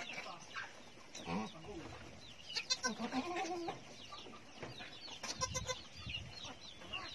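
Farm chickens clucking and peeping: a steady scatter of short, high, falling chirps, with louder bursts of calls about three and five and a half seconds in.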